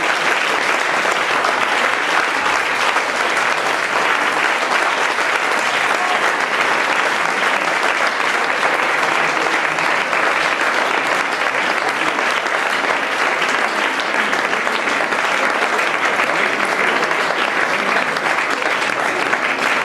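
Audience applauding steadily, a dense continuous clapping that does not let up.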